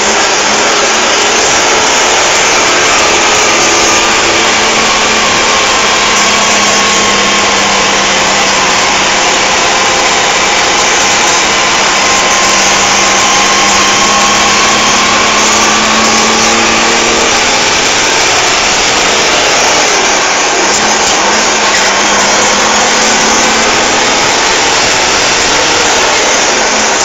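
Mercedes-Benz 911 timber truck's diesel engine running steadily under way, the engine note rising a little about a third of the way in and easing back down later.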